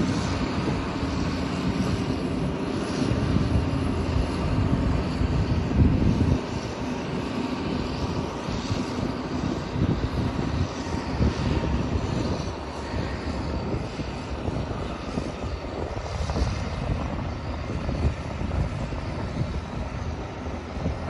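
Champion 720VHP motor grader's diesel engine running steadily as the grader drives slowly away.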